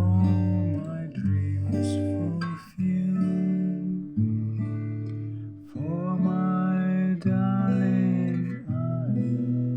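Background music: acoustic guitar strumming chords that change every second or two.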